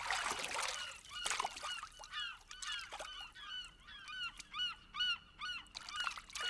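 Birds giving short, repeated honking calls, many in quick succession, with a brief rush of noise at the start.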